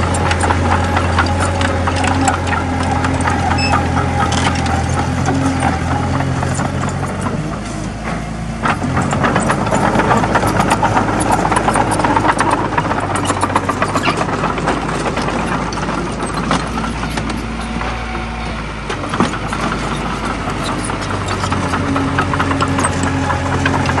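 Komatsu D20A bulldozer's diesel engine running under work with a steady low drone, over a constant rattle of clanks and clicks. The engine note shifts about eight seconds in and returns to its first pitch near the end.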